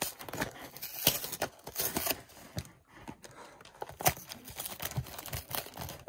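Cardboard trading-card hanger box being pried and torn open by hand: irregular crackling, tearing and scraping of the paperboard flap on a box that is tough to get into.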